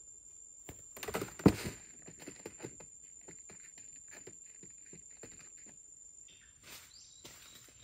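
Cardboard-box deadfall trap dropping shut: a short clatter with one loud thud about a second and a half in, followed by scattered light knocks and scuffling. Light rustling comes near the end.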